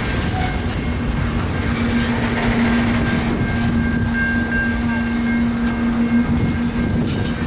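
Double-stack intermodal container cars of a CN freight train rolling past at a level crossing: a steady, loud rumble of wheels on rail, with a steady low hum running through it.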